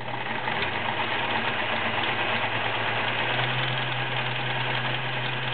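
Kenmore model 1941 sewing machine running and stitching a multi-point zigzag: a steady electric-motor hum under a rapid, even clatter of the needle mechanism. The motor picks up speed a little past halfway.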